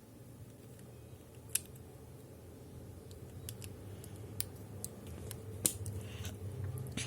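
Scattered sharp plastic clicks from a Transformers toy robot's parts being handled and snapped into place, over a low steady hum. The clicks come more often in the second half, with the loudest near the end.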